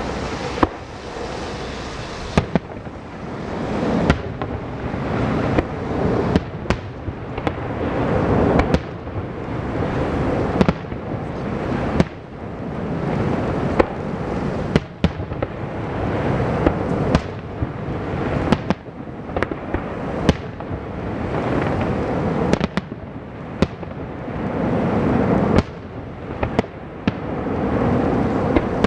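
Aerial firework shells bursting one after another, with sharp bangs about every second over a continuous rumble that swells and fades.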